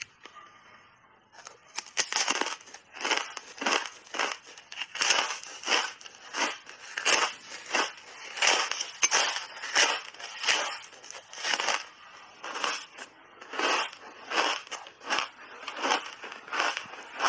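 Close-miked crunching of a frozen berry ice bar coated in matcha powder, bitten and chewed. It begins about a second and a half in with a sharp crunch about twice a second.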